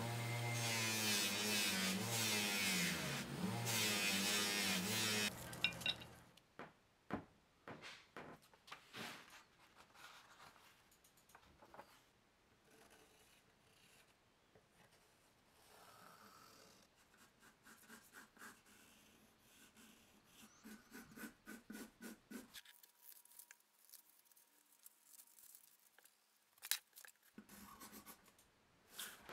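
A small bench buffer's cloth buffing wheel running with a wavering drone whose pitch dips about three seconds in. It stops about five seconds in and gives way to faint pencil scratching and tapping on paper, with one sharp click near the end.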